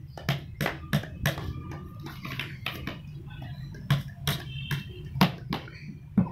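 A spoon striking an upturned plastic storage tub, played like a drum with quick, sharp taps. There are about four taps early, a pause of a couple of seconds, then a second run of about six taps.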